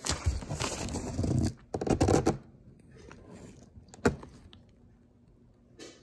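Hands scraping and rubbing over a styrofoam packing block and cardboard box close to the microphone. There are two stretches of scratchy handling noise in the first two and a half seconds, then a single sharp tap about four seconds in.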